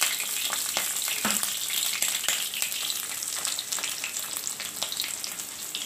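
Chopped onions sizzling and crackling in hot mustard oil in a kadhai, just put into the pan, with a few louder clicks among the steady crackle.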